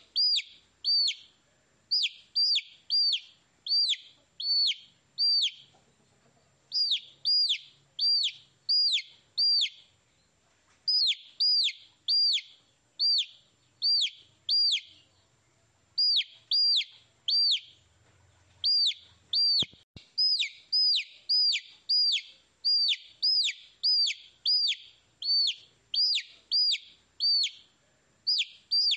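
Baby chicks peeping: a steady run of loud, high chirps, each dropping in pitch, about two a second, broken by a few short pauses.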